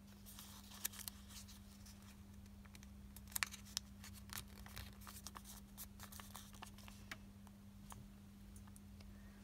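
Origami paper crackling and rustling faintly as it is folded and creased by hand, in scattered small crisp clicks, the loudest pair a little past three seconds in.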